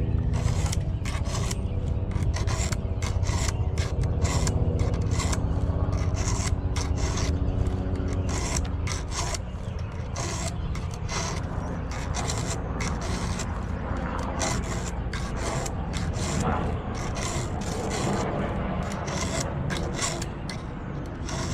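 Hand file rasping across the cutters of a chainsaw chain in repeated quick strokes, sharpening the chain so that it bites and cuts better.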